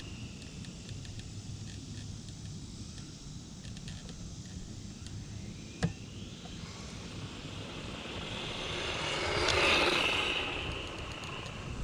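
Hosim Q903 brushless 1/16-scale RC truck running flat out. Its motor whine and tyre noise build as it approaches, peak as it passes close about ten seconds in, then fade away.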